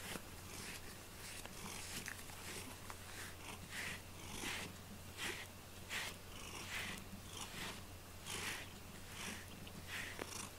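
Faint, soft strokes of a pet brush through a cat's fur, roughly one a second, with the cat purring quietly.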